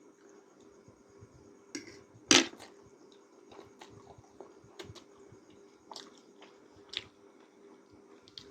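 A person chewing instant noodles close to the microphone, with scattered wet mouth clicks and one louder sharp click a little over two seconds in.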